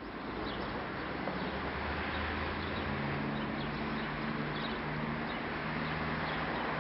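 Outdoor ambience: a steady wash of background noise with a low hum, a second higher hum joining about three seconds in, and faint bird chirps.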